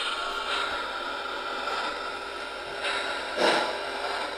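Three-rail O-gauge model train running on the layout track: a steady whirring rolling sound with a brief louder swell about three and a half seconds in.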